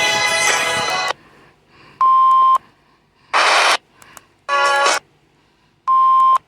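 Emergency alert broadcast tones: music cuts off about a second in, then four short electronic bursts about a second apart, a steady beep, a hissy data-like burst, a buzzing burst and another steady beep, the lead-in to a spoken weather warning.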